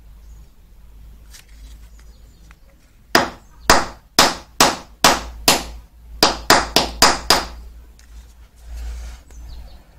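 A kitchen knife chopping down on the black plastic casing of a small box-type 400 V film capacitor, making about a dozen sharp knocks in two quick runs between about three and seven and a half seconds in.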